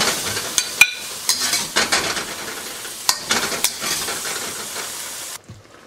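Pork slices sizzling in a hot wok while a metal spatula scrapes and scoops them out, with several sharp clinks of metal on the wok. The sizzle stops abruptly about five seconds in.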